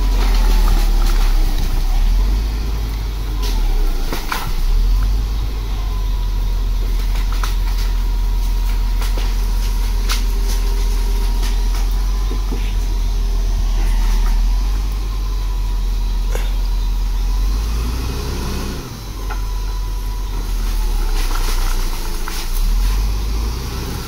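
CAT D7R bulldozer's diesel engine running steadily under load, with a faint steady whine above it and scattered sharp knocks and clanks. The engine note dips briefly about three quarters of the way through.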